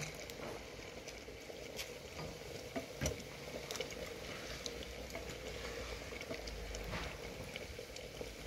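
Pot of duck stew with beer just added, simmering over a charcoal fire with a steady soft crackle, while a wooden spoon stirs it with a few knocks against the aluminium pot.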